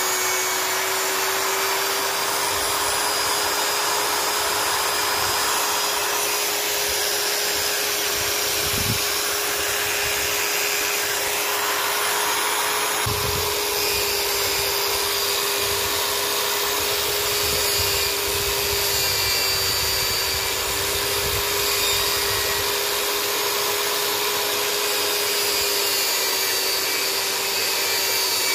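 Electric drill running at a steady speed with an even motor whine, spinning a thin fishing-rod blank held in its chuck while a hand sands the blank, adding a steady rubbing hiss. It stops suddenly at the end.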